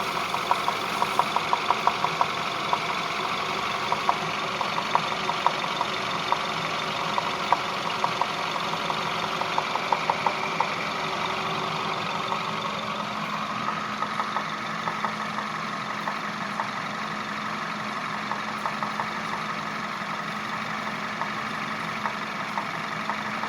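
Peugeot 508's 1.6 THP turbocharged four-cylinder petrol engine running at idle with a sharp, irregular knocking tick over its steady hum: the engine knock the owner is recording. The ticks come thick for the first dozen seconds or so, then thin out.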